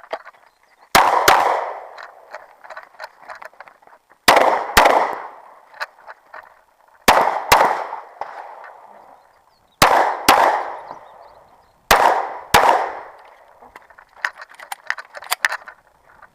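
Pistol fired in five quick pairs of shots, the two shots of each pair about half a second apart and a couple of seconds between pairs. Each shot rings out with a fading echo, and small clinks follow.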